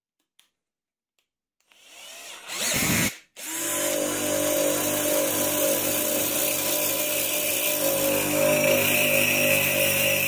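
A motor spins up with a rising pitch and cuts off about three seconds in. Moments later a bench grinder runs steadily while the end of a threaded bolt, spun in a cordless drill, is ground against the wheel: a steady grinding hiss over a hum.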